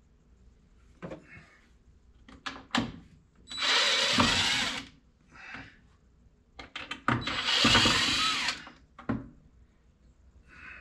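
DeWalt cordless drill-driver backing screws out of a wooden display case panel: two runs of just over a second each, each led by a few quick short blips of the trigger, with a few soft knocks of handling in between.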